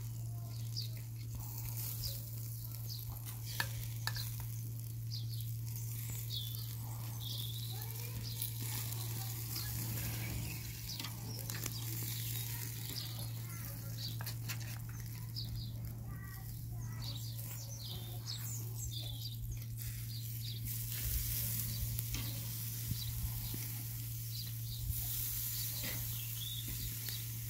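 Pork belly and chicken sizzling on a charcoal grill grate, with many small crackling pops scattered throughout. A steady low hum runs underneath.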